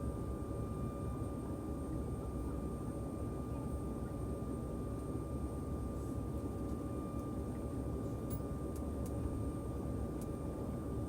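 Steady low rumbling drone of a running vehicle, with a faint steady whine over it.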